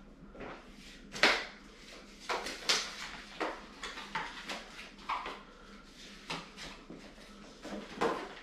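Cardboard packaging and paper being handled: a string of irregular rustles, scrapes and knocks, the sharpest a knock about a second in.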